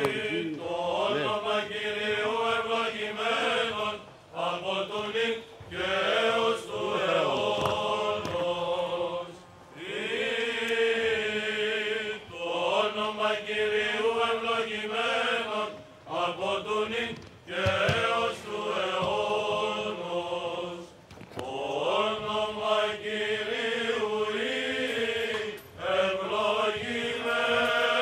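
Greek Orthodox Byzantine chant: a slow melody sung in phrases a few seconds long, with brief breaks for breath between them.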